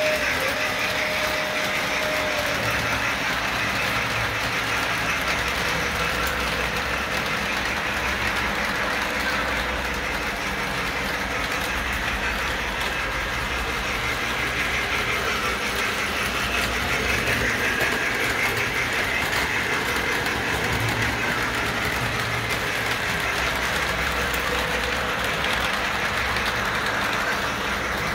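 Model train running on its track, a steady rumble and clatter of wheels on rail. A steady whistle-like tone carries on at the start and stops about two seconds in.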